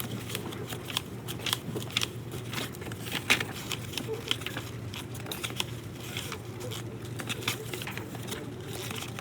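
Irregular light clicks and crinkling, the sharpest about three seconds in, over a steady low hum.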